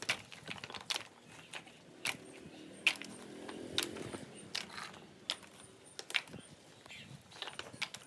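Broken dried coconut shell halves being gathered off a stone floor and tossed into a woven basket: a dozen or so irregular knocks and clatters as the hard shells hit each other and the basket.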